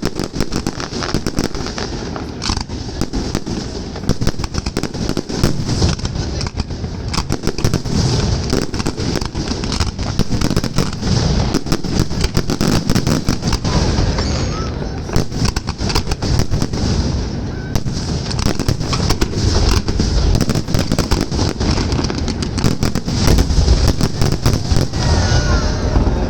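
Fireworks display: a dense, continuous stream of bangs and crackles as many shells burst in quick succession, over a low rumble.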